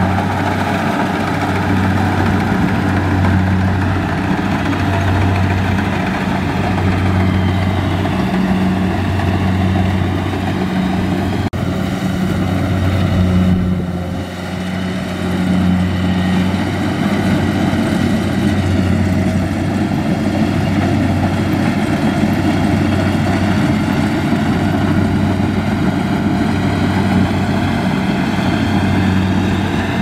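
Kubota combine harvester's diesel engine running steadily under load, its low hum swelling and fading in a slow throb, with a brief dip in loudness about halfway through.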